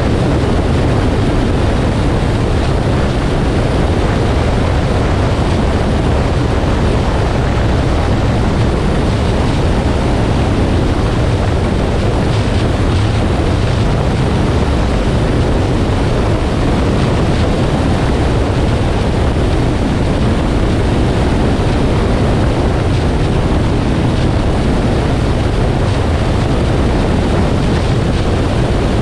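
2018 Nissan Armada driving at speed: steady road and wind noise with a heavy low rumble, unchanging throughout.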